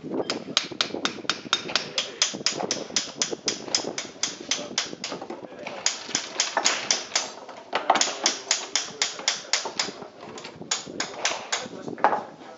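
Rapid, even tapping on a miniature cannon as it is loaded with a rod at the muzzle, about five taps a second, in four runs with short breaks.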